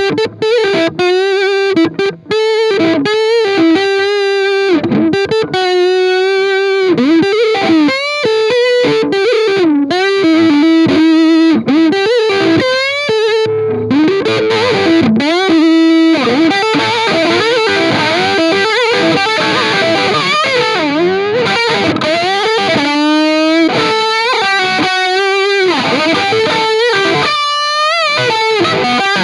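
Distorted electric guitar playing a slow melody. Its held notes waver up and down in pitch with wide vibrato, and several notes swoop down and back up.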